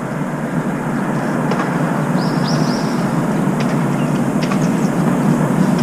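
Steady low rumble of outdoor background noise from the apartment surroundings. A brief faint high bird call comes a little over two seconds in, and a few light ticks are scattered through.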